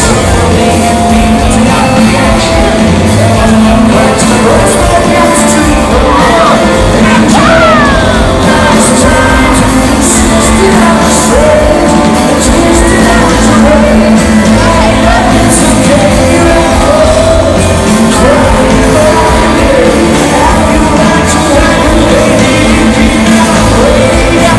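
Live rock band playing a song with sung vocals, loud and continuous, with guitar, bass and drums.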